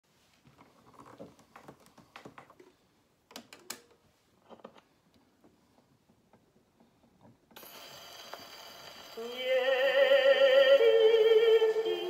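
A portable wind-up gramophone being handled: faint clicks and knocks, then about seven and a half seconds in the needle meets the groove and the steady hiss of a 78 rpm record's surface starts suddenly. About a second and a half later the record's orchestral introduction begins, louder, with wavering held notes.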